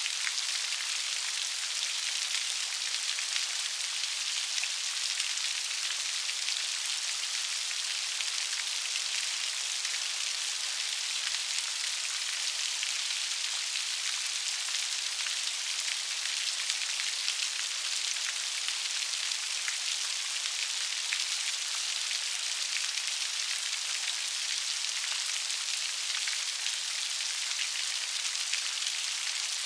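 Steady rain falling on a surface, an even hiss with many fine drop ticks.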